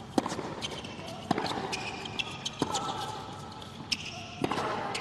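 Tennis ball struck by rackets during a point on a hard court: four sharp hits about a second or more apart, with short high squeaks of shoes on the court between them.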